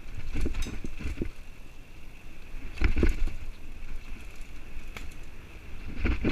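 Mountain bike riding fast down rough dirt singletrack: tyre noise and a steady low rush, with clusters of rattles and clunks from the bike as it hits bumps about a second in, around three seconds, and again near the end.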